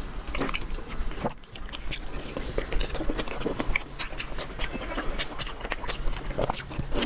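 A person chewing food close to the microphone: irregular wet smacking and crunching mouth sounds.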